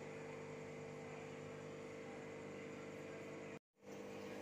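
Steady electrical hum made of several constant tones, cutting out completely for a split second near the end.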